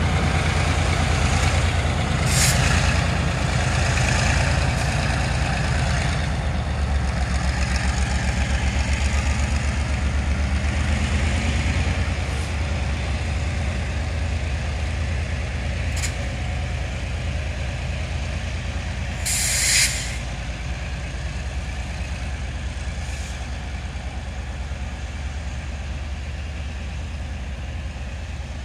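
Diesel-electric locomotive's engine running under load with a steady low throb as it pushes a rake of freight wagons away, slowly fading with distance. Short hisses of air come about two seconds in and again around sixteen seconds, and a longer, louder air-brake hiss comes about twenty seconds in.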